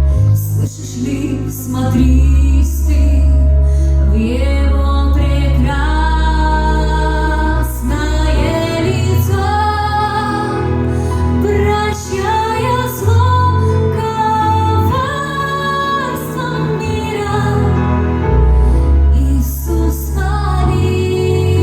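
A Christian song: a female voice singing a slow melody over sustained bass and chordal accompaniment.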